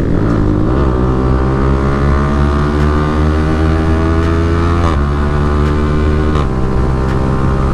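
Yamaha R15M's single-cylinder engine pulling hard under acceleration, its pitch rising steadily, then dropping sharply with an upshift about five seconds in and changing again a second or so later.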